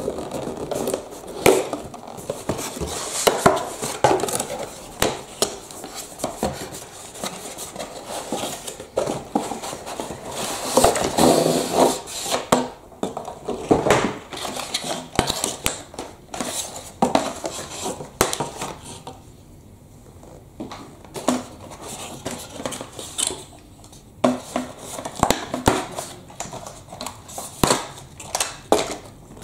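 Cardboard toy box and insert being handled and pulled apart by hand, with black plastic fastening tabs being worked loose: a busy run of rustles, scrapes and small plastic clicks, easing off for a couple of seconds about two-thirds of the way through.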